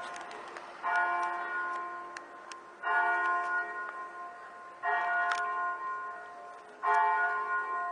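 A single church bell tolling, struck four times about two seconds apart, each stroke ringing and slowly dying away.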